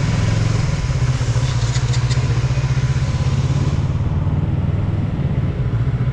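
Motorcycle engine running steadily while being ridden, with wind rush on the microphone that drops away about four seconds in.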